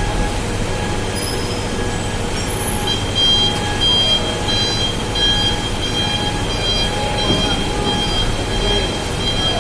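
Diesel trucks rumbling as they drive aboard a car ferry. From about three seconds in, a vehicle's reversing alarm beeps at a steady pace.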